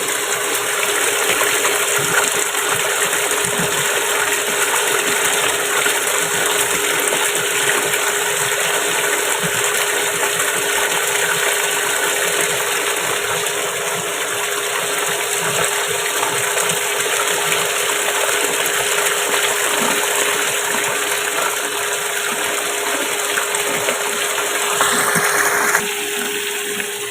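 Water gushing steadily into a washing machine tub as it refills with the drain valve closed. The sound briefly brightens near the end, then falls off.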